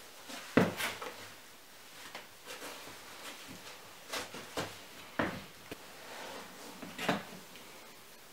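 A shoe being put on and laced: a string of short knocks and scuffs of its sole on the bare floor, the sharpest about half a second in.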